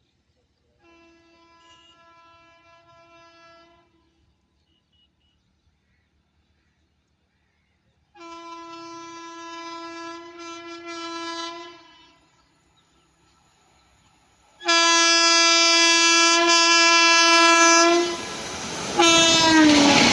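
WAP-7 electric locomotive's horn sounding three one-note blasts, each louder than the last as the train approaches. About 18 seconds in, the loud rush of the passing train sets in, and a fourth blast drops in pitch as the locomotive goes by.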